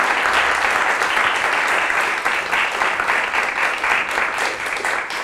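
Studio audience applauding steadily, many hands clapping together, the applause slowly thinning towards the end.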